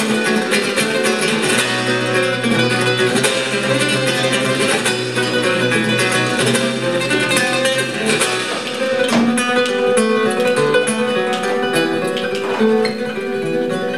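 Flamenco guitar played live on a nylon-string acoustic guitar: plucked and strummed passages full of sharp percussive accents.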